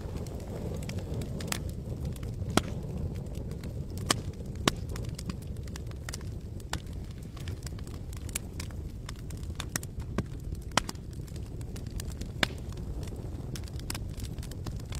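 Wood campfire crackling: irregular sharp pops and snaps, a few standing out loudly, over a steady low rumble.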